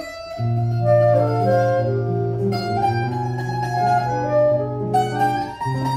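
A choro trio playing: clarinet over a bandolim (Brazilian mandolin) and a nylon-string guitar, with long clarinet notes above plucked strings. The music comes in at full strength about half a second in.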